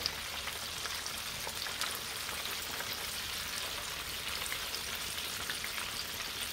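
Stuffed catfish fillets deep-frying in hot canola oil: a steady, even sizzle with many small crackles.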